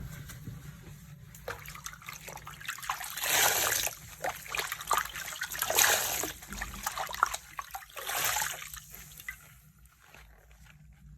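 Soapy water with foaming floor cleaner sloshing and trickling. Three louder splashing surges come about three and a half, six and eight seconds in, with small crackles between them, and the sound fades near the end.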